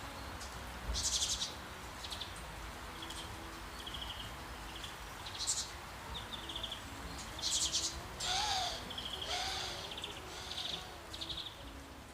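Songbirds calling in short, high, rapid trills, one after another, with two longer calls about eight and nine seconds in, over a steady wash of running water.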